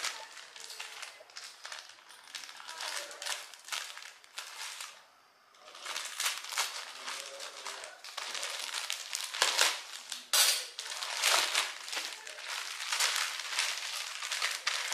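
Plastic courier packaging crinkling and rustling in close, dense crackles as it is handled and cut open with scissors, with a short pause about five seconds in.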